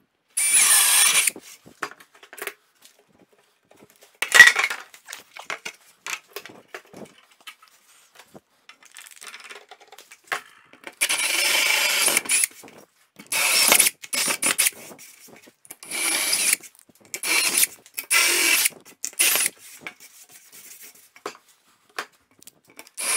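Cordless drill boring through a wooden shelf board with a 44 mm Milwaukee self-feed bit, run in a series of short bursts of about a second each with pauses between. Small clicks and knocks fill the gaps, and a single sharp knock about four seconds in is the loudest sound.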